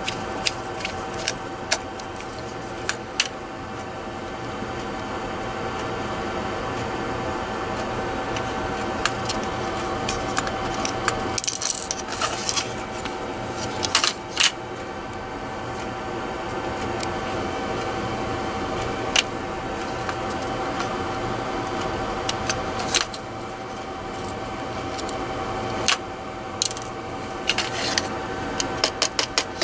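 Scattered small clicks and taps of a precision screwdriver and small screws against a plastic mouse case as it is screwed together, over a steady hum with a whine.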